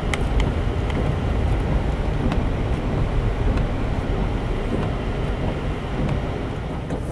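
Toyota FJ Cruiser driving on a snow-covered road, heard from inside the cab: a steady low rumble of engine and tyres.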